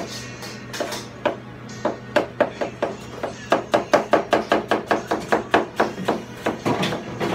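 Chinese cleaver chopping onion on a plastic cutting board. Scattered knocks at first, then from about halfway a fast, even run of chops at about five a second. A steady low hum sits underneath.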